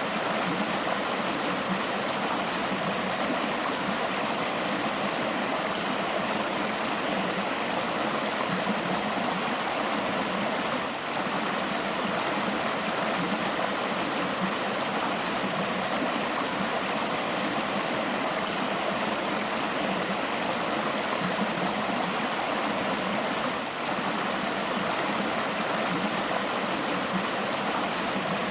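Forest river flowing, a steady, even rush of water over rocks.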